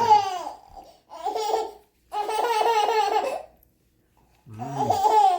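A child laughing in several high-pitched bursts, with short silent gaps between them.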